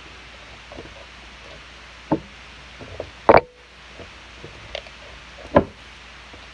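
Four scattered knocks on a tabletop while slime is kneaded by hand. The loudest comes about halfway through.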